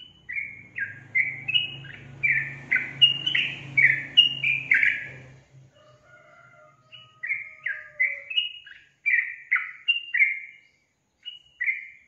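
Yellow-vented bulbul (trucukan) singing: runs of quick, loud chattering notes, a first run of about five seconds, a short pause, then a second run and a couple of last notes near the end.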